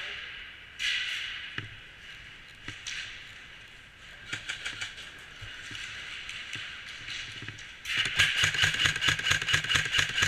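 Airsoft guns firing: scattered shots and short bursts, then a long rapid full-auto burst from about eight seconds in.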